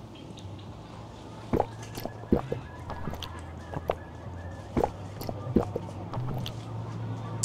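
A person gulping makgeolli straight from the bottle: several separate swallows, spaced irregularly, over a low steady hum.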